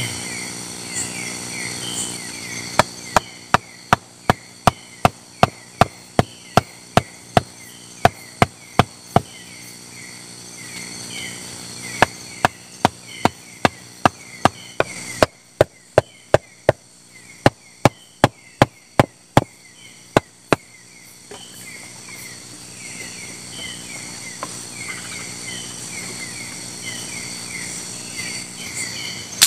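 Chopping wood with a blade, sharp strikes about three a second in three runs with short pauses between. Insects chirp steadily underneath.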